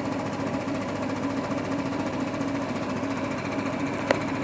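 SensorMedics 3100A high-frequency oscillatory ventilator running, its piston diaphragm oscillating at a rapid rate and giving a steady mechanical buzz, with one short click about four seconds in.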